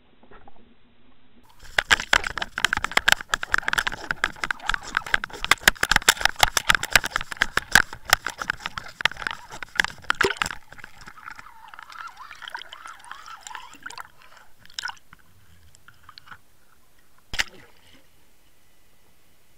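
Water splashing and churning as a pike thrashes at the surface by the lure, heard through an underwater camera's housing. A dense run of crackling knocks lasts about nine seconds, then fainter sloshing follows, with a single sharp knock near the end.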